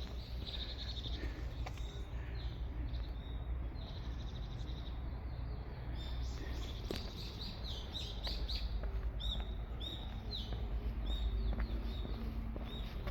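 Wild songbirds chirping and calling in woodland: many short, high, repeated notes, sparse at first and busier from about halfway through, over a steady low rumble.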